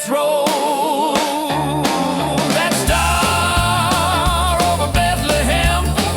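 1950s-style rock and roll music with no lead vocal. A wavering held melody line is joined about a second and a half in by a stepping bass line.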